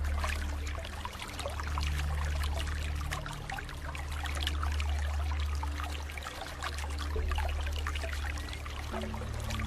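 Running water trickling and splashing like a small stream, steady throughout, over soft background music of sustained low notes that change every second or two.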